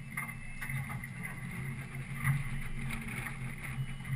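Boat engine running steadily, a low hum, with a few faint scattered taps and knocks on the boat.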